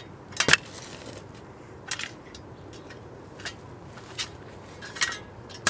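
Digging tool cutting into lawn soil: a series of short, crunchy scrapes, about six, spaced irregularly a second or so apart.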